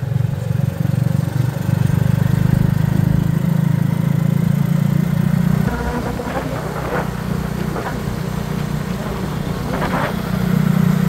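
Steady low drone of a small motor vehicle's engine running while on the move, easing off about six seconds in and picking up again near the end, with a few short higher sounds over it.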